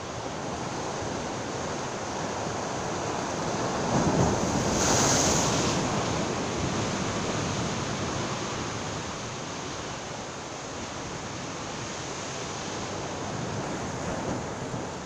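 Sea surf washing against the rocks of a jetty, with wind buffeting the microphone; one wave surges louder about four seconds in, hissing as it breaks.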